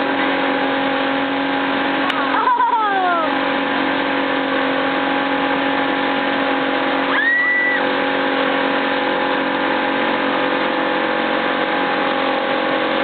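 Motorboat engine running steadily at speed, a constant drone under a rush of water and wind. About two and a half seconds in there is a short falling cry, and about seven seconds in a brief whistle that rises and holds.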